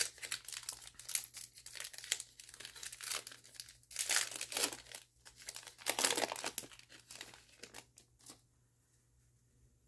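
Foil wrapper of an NBA Hoops trading-card pack crinkling and tearing as it is peeled open by hand, with louder tears about four and six seconds in. The crinkling stops shortly before the end.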